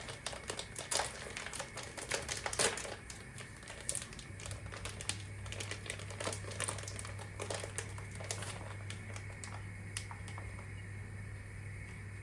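Quick light clicks and taps of household objects being handled, busiest in the first three seconds and sparser afterwards, over a steady low hum.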